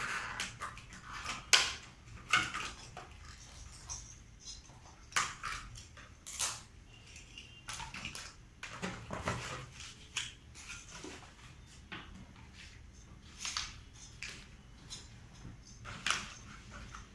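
Plastic toy track pieces and small bagged toy cars being handled and set down, with irregular clicks, taps and crinkles of plastic packaging.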